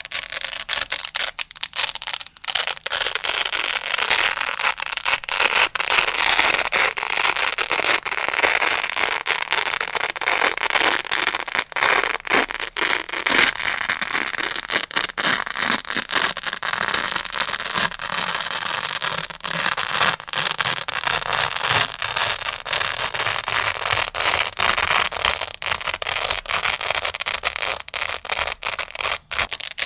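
Grey Velcro hook-and-loop pad being worked close to the microphone: a continuous, crunchy crackle of many sharp clicks as the hooks and loops catch and tear.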